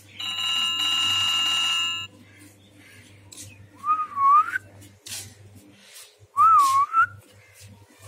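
A mobile phone ringtone ends on one held electronic note lasting about two seconds. Then a ring-necked parakeet gives two loud wavering whistles a couple of seconds apart, with a few short clicks between.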